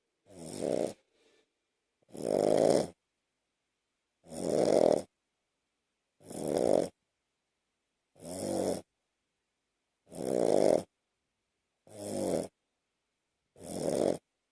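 A small Shih Tzu mix dog asleep and snoring, with short snores about every two seconds, eight in all.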